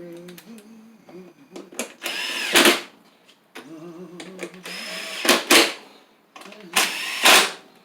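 A power tool run in three short bursts, each one spinning up and winding back down in pitch.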